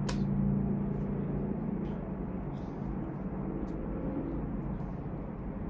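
Steady low background rumble and hum, with a few faint, brief clicks.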